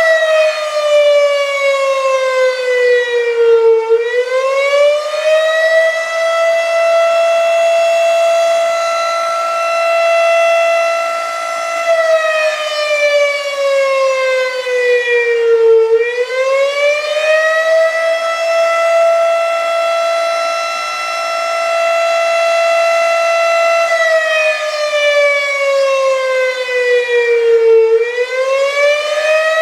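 Outdoor warning siren wailing: a steady high tone that slides down over a few seconds and swings quickly back up, three times at about twelve-second intervals.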